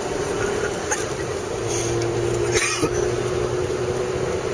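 Steady engine and road noise inside a moving car's cabin, a continuous hum under a noisy hiss. A brief hiss sounds a little past halfway.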